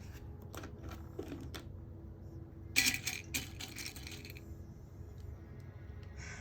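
Plastic clicks and clacks from a LEGO typewriter mechanism: a few light clicks, then a louder clattering cluster about three seconds in.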